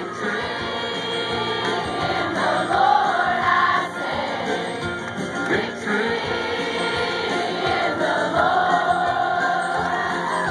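A live country band playing, as heard from the crowd: acoustic guitar, banjo and drums with voices singing.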